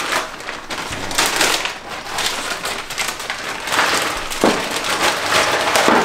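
Plastic bag crinkling and rustling as it is handled and opened to get at the hardware and instructions inside.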